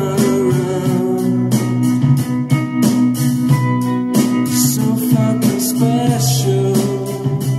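Background music: a guitar song with a steady beat and a sung vocal line.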